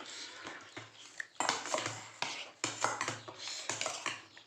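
Metal utensils clinking and scraping against dishes: a series of irregular clinks and scrapes, as when food is served or eaten.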